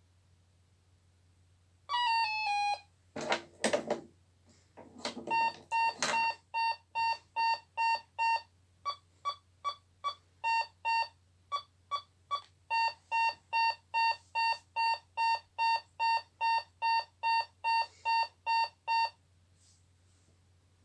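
ADE Technic keyswitch alarm panel sounding: a short falling chime about two seconds in, then a few sharp mechanical clunks, then a long run of evenly spaced electronic beeps, a bit over two a second. The beeps go slightly higher in pitch for a few seconds midway and stop a couple of seconds before the end.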